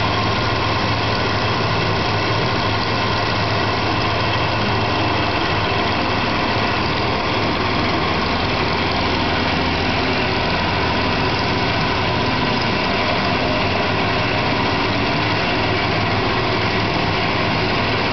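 CNC milling machine running, its end mill cutting a metal part held in a vise under milky coolant: a steady, unbroken machine drone with a constant hum.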